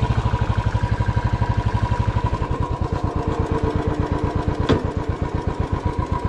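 Royal Enfield Classic 350's single-cylinder engine idling with a steady, even thump. A single sharp click comes about three-quarters of the way through.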